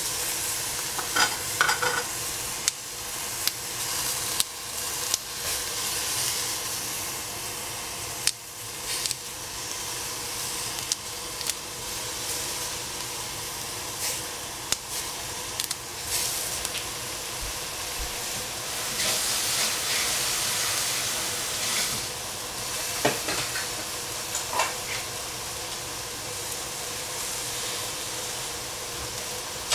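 Broccoli sizzling as it is stir-fried in a hot pan, a steady frying hiss, with a utensil clacking and scraping against the pan at irregular moments.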